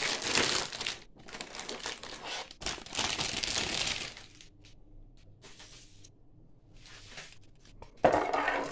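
Clear plastic bag crinkling and rustling as grey plastic model-kit sprues are pulled out of it and handled. It is loudest in the first second and again around three to four seconds in, with fainter rustles in between and a further burst near the end.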